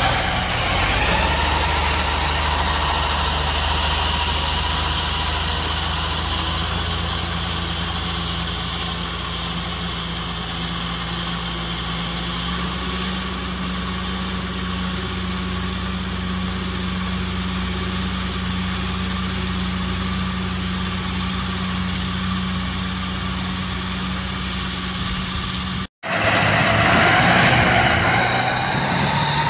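Tractor engine running steadily while driving a New Holland MowMax seven-disc mower that is cutting alfalfa. Near the end the sound cuts out for an instant and comes back a little louder.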